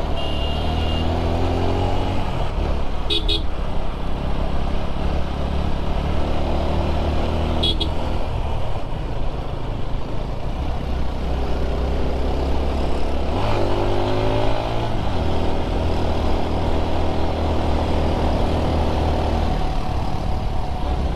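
Motorcycle engine running under way, its pitch climbing twice as the throttle is opened, near the start and again about 14 seconds in. Two brief high beeps come about 3 and 8 seconds in.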